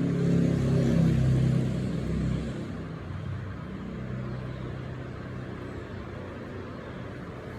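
A motor vehicle's engine running with a low rumble, louder for the first two and a half seconds, then steadier and quieter.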